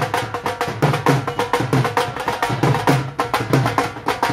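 Dhol drum played fast in a steady celebratory beat: crisp stick strokes several times a second over repeated deep bass thuds.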